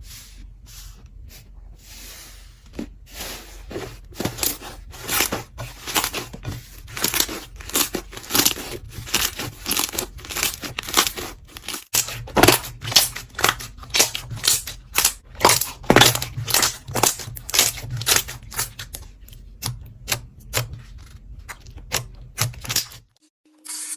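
Slime being pressed and worked, giving a dense run of irregular crackles and pops that grows busier and louder after a short break about halfway, then stops just before the end.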